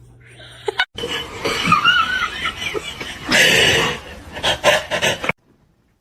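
People laughing in loud, uneven bursts, starting suddenly about a second in and cut off abruptly near the end.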